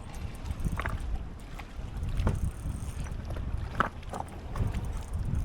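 Wind buffeting the microphone as a steady low rumble, with a few faint scattered clicks.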